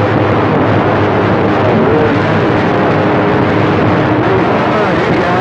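CB radio receiver hissing with loud static on an open channel between transmissions, with faint warbling tones drifting through the noise.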